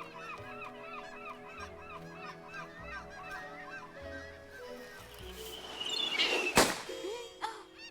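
A flock of cartoon birds squawking over and over, with sustained music tones underneath. About six and a half seconds in, a rising whoosh ends in a sharp, loud crash.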